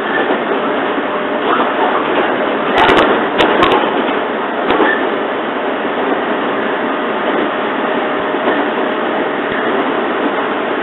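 Running noise of a JR 115 series electric train heard from inside a carriage: a steady rumble and rush while it travels, with a few sharp clicks about three to four seconds in.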